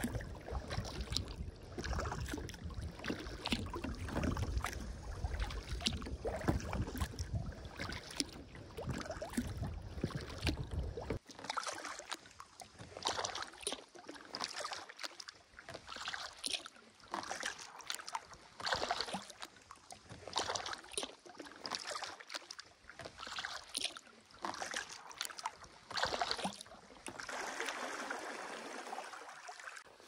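Kayak paddle strokes dipping and splashing in the water, one about every second or so. Under the first third runs a low rumble that cuts off suddenly.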